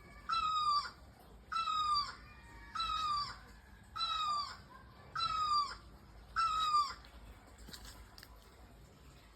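A bird calling six times, about once a second. Each call lasts about half a second and dips slightly in pitch. The calls stop about seven seconds in.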